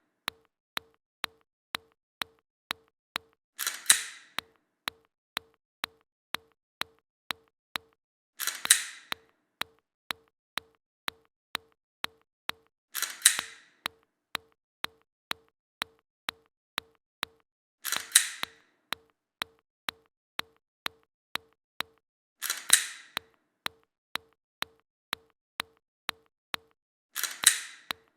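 A gunshot sound effect fired six times, about every five seconds, each a sharp bang with a short decaying tail. Between the shots runs a steady train of quieter short ticks, about two a second.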